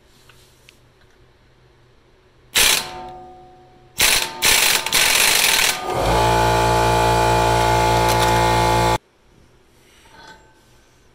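A power impact wrench drives the forcing screw of a front hub puller to press the rusted CV half shaft out of the wheel hub and break the bond. There is a sudden loud burst about two and a half seconds in that rings out, then a few short bursts, then a steady, even hammering run of about three seconds that cuts off suddenly.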